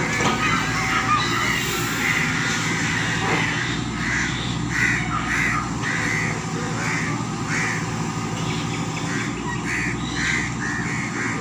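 A Tata Hitachi excavator's diesel engine runs steadily while a bird calls over and over, about a dozen short calls roughly half a second apart, starting about two seconds in.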